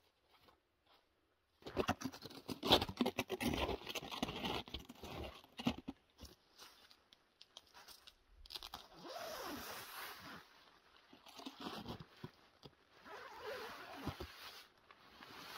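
Snowshoes crunching in snow and tent fabric rustling and scraping as it is handled and pulled up, starting about a second and a half in with dense crunching that then eases into softer rustling.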